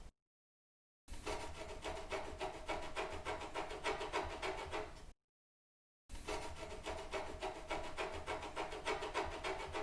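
Scratching sound effect: rough, rapid scratching strokes, in two separate takes of about four seconds each with a second of dead silence between them.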